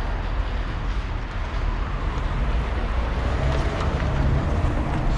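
A car engine running steadily, a low even rumble.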